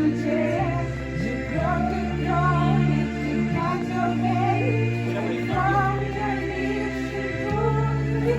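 Background music: a slow song with sung vocals over sustained bass notes that change every couple of seconds.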